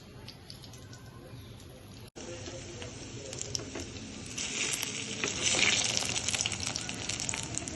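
Kurmura (puffed rice) and potato cutlets frying in hot oil, a crackling sizzle that is faint at first, breaks off briefly about two seconds in, then grows louder and busier from about halfway through.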